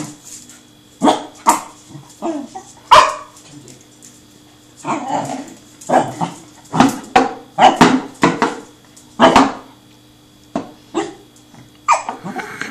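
Pembroke Welsh Corgi puppy yapping, a dozen or more short, sharp barks in irregular bursts during excited play, with a tin can now and then knocking on a tile floor.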